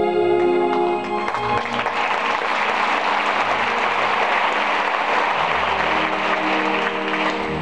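Theatre audience applauding. The orchestral music stops about a second in, and the orchestra starts playing again under the applause near the end.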